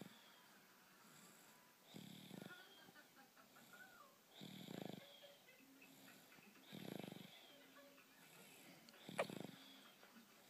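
A sleeping baby snoring softly, four snores about two and a half seconds apart. The last snore carries a brief sharp squeak.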